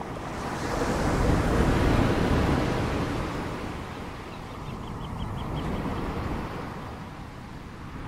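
Ocean waves: one large wave of surf swells up and fades away over the first four seconds, then a smaller wave rises and falls about five to six seconds in.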